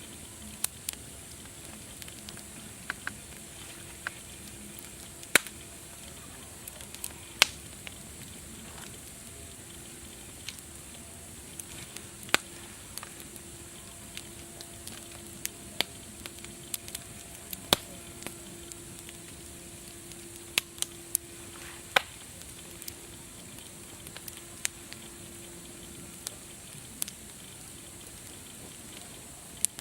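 Wood fire crackling: irregular sharp pops and snaps, a few much louder than the rest, over a steady hiss.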